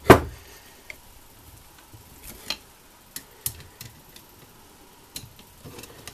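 A long screwdriver tightening the crankcase screws of a Simson two-stroke engine's aluminium case: one sharp metallic knock at the start, then scattered light clicks and ticks as the blade seats in the screw heads and turns.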